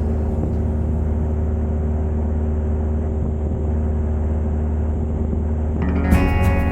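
Cessna 172 light aircraft's piston engine and propeller, a steady low drone with no change in pitch. Music comes in near the end.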